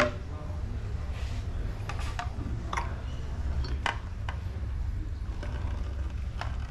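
A few scattered light clicks and taps of small metal tools and parts being handled on a workbench, over a steady low hum.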